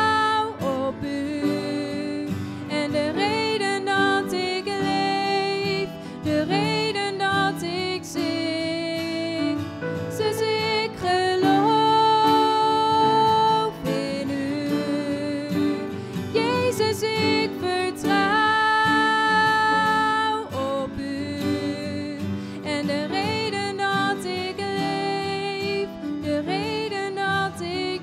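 A young woman singing a slow worship song into a microphone, with acoustic guitar accompaniment; she holds some long notes.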